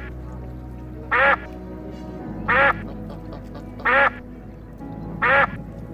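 A duck quacking: four short single quacks, evenly spaced about a second and a half apart, over background music.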